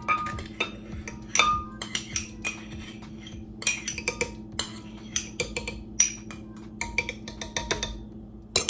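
Irregular sharp clinks and knocks, some with a brief ring, as a measuring cup is tapped and scraped against a glass blender jar to empty cottage cheese into it.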